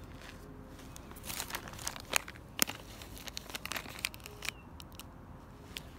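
Clear plastic packets of snelled fishhooks and split-shot sinkers crinkling in a hand. A run of sharp crackles starts about a second in and is loudest between two and three seconds in.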